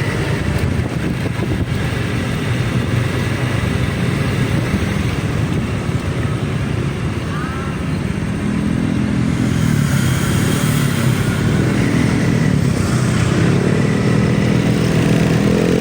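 Road vehicle engines running. In the second half one engine climbs steadily in pitch and gets louder as it accelerates.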